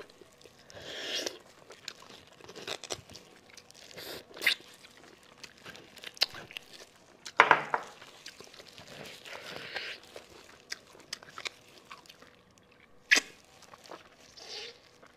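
Close-miked eating of braised sheep marrow bones: sucking and slurping the marrow out of the bone ends, with chewing and scattered sharp crunches and clicks, the loudest about seven and a half seconds in.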